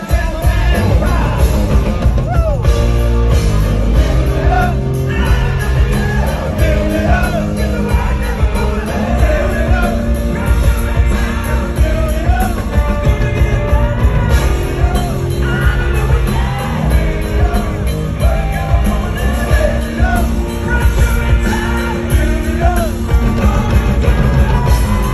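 Rock band playing live and loud, with electric guitar, bass and drums under a male lead singer. Heard from the crowd, the bass end is heavy.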